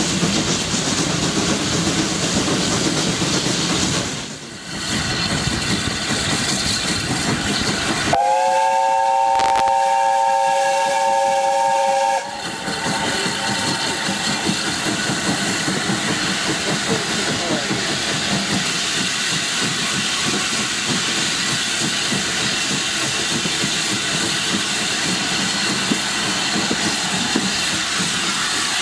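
The chime whistle of US Army Transportation Corps S160 steam locomotive No. 2251 'Omaha' sounds once, about eight seconds in: a chord of several notes held for about four seconds, rising slightly in pitch as it opens. Before and after it, the train runs on with steam hissing, heard from a carriage window behind the engine.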